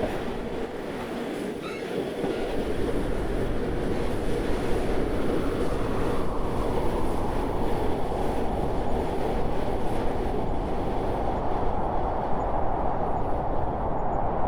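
Train running on rails, a steady rumble with a faint high wheel squeal about a second and a half in.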